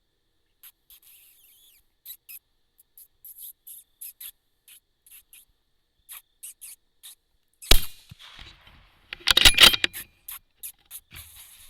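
Faint short high squeaks, then a single sharp rifle shot about two-thirds of the way in. About a second and a half later comes a close cluster of loud cracks from more shooting at coyotes.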